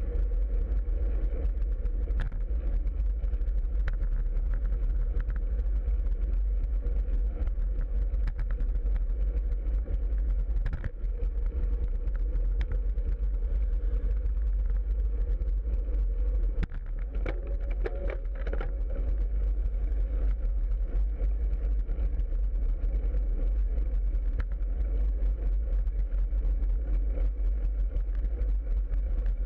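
Steady wind rushing over a bike-mounted camera's microphone while cycling along a road, with road noise and scattered light clicks and rattles.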